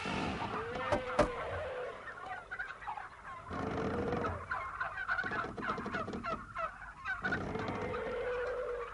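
Many animals calling at once, birds among them with many short chirping calls, over which several longer held calls stand out three times. A sharp knock comes about a second in.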